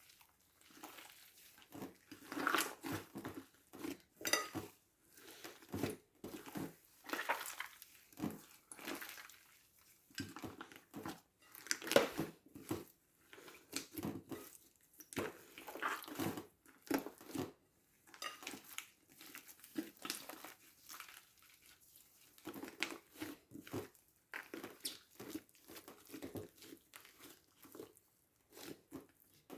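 Slime being squished, pressed and stretched by hand, giving irregular wet clicks, pops and crackles in uneven bursts every half second or so.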